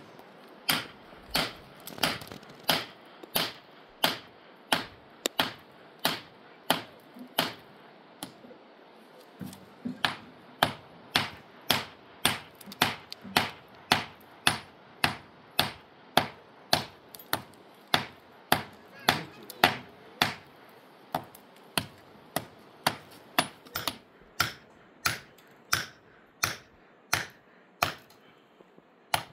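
Repeated sharp strikes at a steady pace of about two a second, with a short pause around eight seconds in before they carry on.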